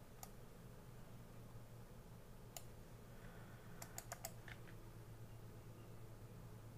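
Faint clicks of a computer keyboard and mouse being worked: a few scattered single clicks, with a quick run of about five around four seconds in, over a faint steady low hum.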